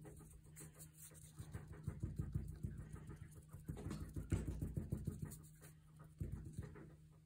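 Small glue brush scrubbing glue onto the edge of book cloth: rapid scratchy brush strokes, busiest from about two to six seconds in, stopping shortly before the end.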